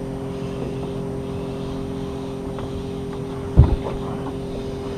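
A small fishing boat's motor hums steadily at an even pitch. A single low thump comes about three and a half seconds in.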